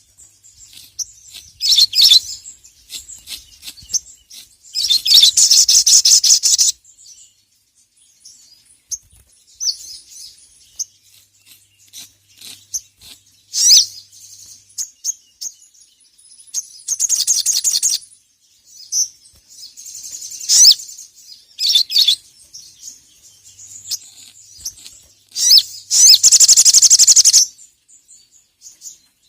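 Sogon (sogok ontong, ruby-cheeked sunbird) singing in full 'gacor' mode: high-pitched chirps and twitters broken by three long rapid rattling trills.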